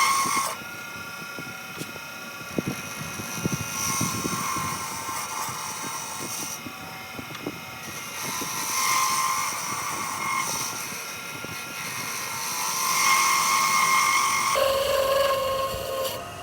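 Wen benchtop wood lathe running with a steady motor whine while a chisel cuts the spinning wooden spindle. The cutting sound swells and fades as the tool is worked along the piece to taper it, with a change in the motor's tone near the end.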